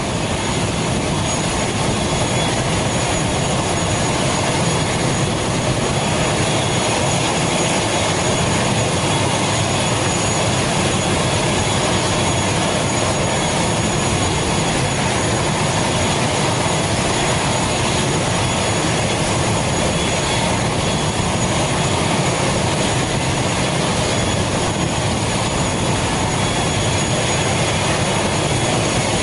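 A parked ATR 72-500 turboprop's engine running steadily at the stand: a loud, even rush with a thin, high, constant whine above it.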